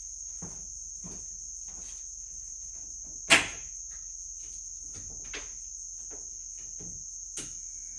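A sharp click about three seconds in as a 3000-watt Renogy inverter is switched on, and a fainter click near the end. A steady high-pitched whine runs underneath.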